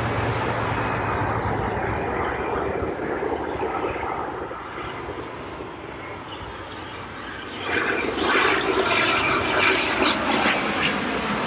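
Jet engines of a Boeing 787-8 on approach to land: a steady rumble that grows louder and rougher about eight seconds in.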